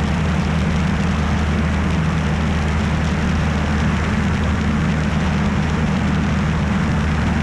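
Steady drone of a Piper Colt's engine and propeller heard inside the cabin, an even low hum with a constant rush of noise over it.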